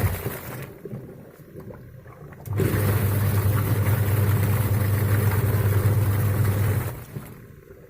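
Polytron washing machine's motor running in a wash cycle: a steady hum with a rough noise over it, stopping about half a second in, starting again at about two and a half seconds, and stopping again near the end.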